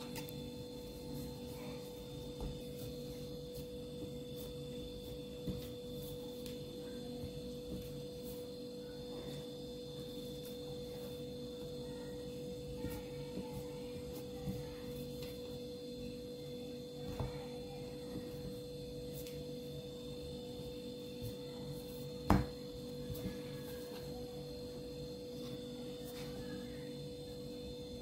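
Steady, faint electrical hum, with a few soft knocks scattered through it, the loudest about 22 seconds in.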